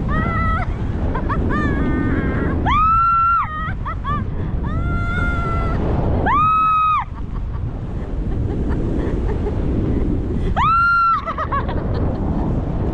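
A person screaming: three long, high shrieks with shorter squeals between them, over a steady low rush of wind.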